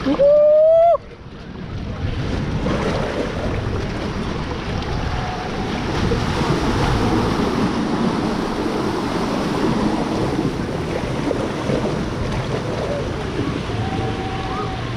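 Rushing, splashing water around a raft tube riding a water park rapids channel, with wind buffeting the microphone. Right at the start, a brief, very loud rising tone lasts under a second.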